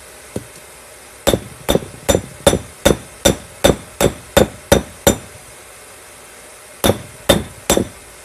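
Forging hammer striking red-hot car coil spring steel on a round steel-block anvil. It lands a run of about eleven blows at roughly two and a half a second, each with a short metallic ring, then three more after a brief pause.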